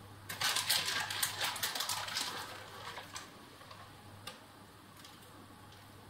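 Dense crackling and rustling for about three seconds as grated cheese is handled and sprinkled onto the parchment-lined tray, then a few scattered ticks, over a faint steady hum.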